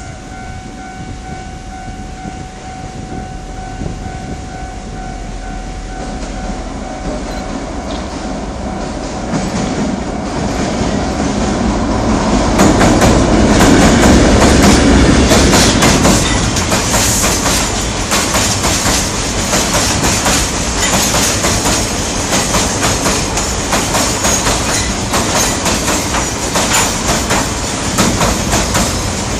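Taiwan Railway R60 diesel locomotive hauling a coal train, approaching and passing close on a steel girder bridge: the rumble grows and is loudest about halfway through as the locomotive goes by. Then the coal hopper wagons roll over the bridge with rapid clickety-clack from the wheels.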